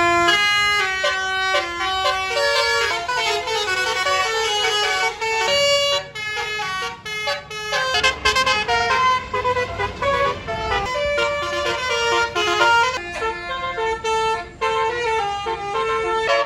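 Bus 'telolet' Basuri musical air horns playing a fast tune of stepped notes, several horn tones sounding together. A low rumble runs under it for a few seconds about halfway through.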